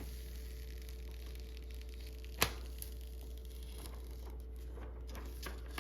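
Faint handling of a thin plastic backing film as it is peeled off a screen protector, over a steady low hum, with one sharp click about two and a half seconds in and light crackles near the end.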